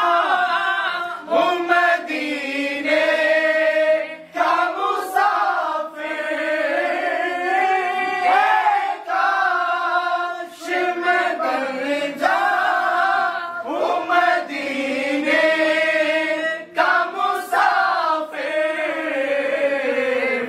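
Group of men singing an Islamic naat together without instruments, lead voices carried by the others in long, bending melodic phrases with brief pauses for breath.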